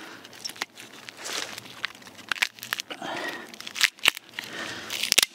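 Splintered wood at the broken top of a stump cracking and crackling as a long split strip of nearly dead wood is pried and torn off by hand: a run of irregular sharp snaps and small crackles.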